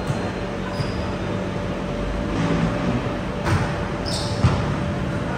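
Volleyball play in a large indoor hall: a few ball hits and brief high sneaker squeaks on the court, the loudest knocks about three and a half and four and a half seconds in, over a steady hum and echoing hall noise.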